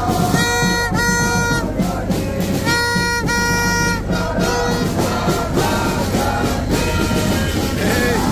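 Music with brass horn notes over drumming: pairs of short horn blasts come about every two seconds at first, then give way to a softer, lower melody about halfway through.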